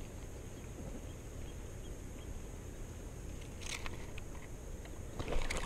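Steady low wind rumble on the microphone while a spinning reel's handle is cranked to retrieve line. Two short noisy bursts, one about three and a half seconds in and a louder one near the end.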